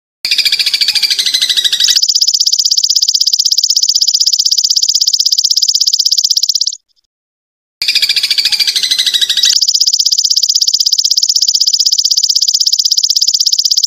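Looped birdsong-training recording of insect trills: two rounds, each opening with about a second and a half of busier chirping, then a steady, very fast buzzing trill of about five seconds that cuts off suddenly, with a second of silence between rounds.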